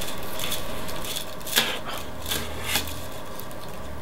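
Plastic drinking straws and their paper-clip connectors being handled and fitted together: a handful of light clicks and rattles, the sharpest about a second and a half in.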